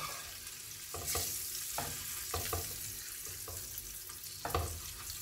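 Scored boiled eggs frying in turmeric oil in a nonstick pan: a steady sizzle, broken by a metal spoon knocking and scraping against the pan several times as the eggs are turned.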